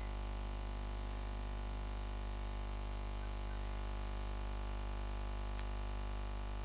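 Steady electrical hum with background hiss, a low mains-type drone with its evenly spaced overtones, from the recording setup. A single faint click sounds near the end.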